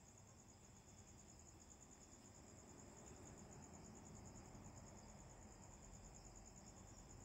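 Faint, steady cricket trill: one high note pulsing rapidly and evenly, over low background noise.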